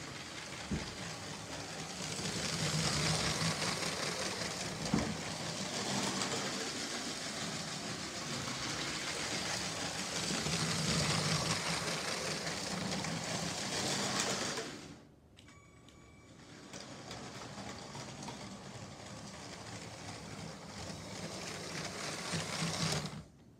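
LEGO Power Functions train motor whirring as a small plastic train rolls around LEGO track, growing louder each time it passes close by. The sound drops suddenly about two-thirds of the way through, carries on more quietly, and cuts off near the end.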